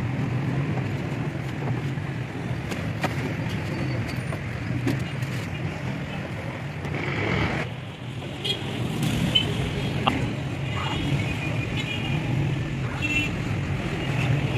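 Busy street traffic noise: vehicle engines running and passing, a steady low rumble with scattered short clicks.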